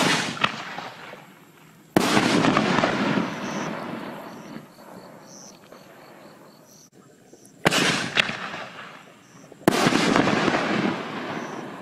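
6-inch aerial firework canister shells going off: four sharp booms in two pairs about two seconds apart, each trailing off in a rolling echo. The second boom of each pair is louder and rings on longest.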